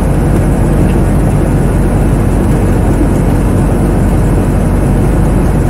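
Helicopter's engine and rotor running at a steady, loud drone with a low, even hum, heard from inside the cabin.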